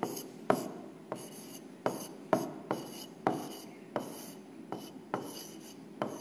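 Stylus writing on the glass face of an interactive touchscreen whiteboard: sharp irregular taps, about two a second, as the pen tip strikes the screen, with faint scratching strokes between them.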